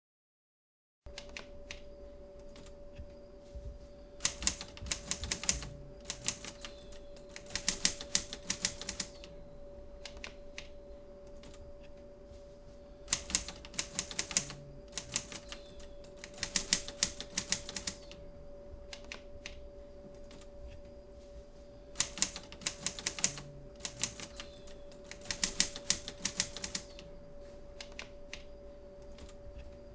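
Typewriter keys clacking in quick bursts of typing, each a second or two long with pauses of a few seconds between, over a steady low hum. It starts about a second in, after silence.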